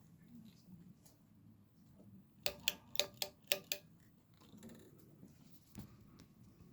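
A quick run of about six sharp clicks or knocks, each with a brief ringing tone, over faint room noise.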